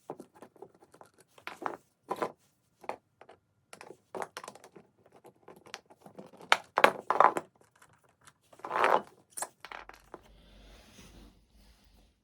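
Skateboard truck being taken apart by hand with a T-tool and screwdriver: irregular clicks, taps and clatter of small metal parts, with a longer scrape about nine seconds in.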